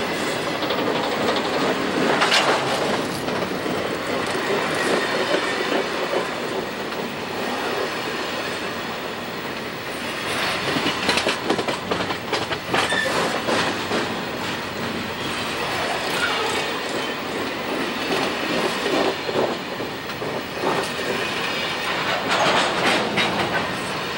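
Empty BC Rail coal hopper cars rolling past close by: a steady rumble of steel wheels on rail, with bursts of clickety-clack three times as wheel trucks cross the rail joints.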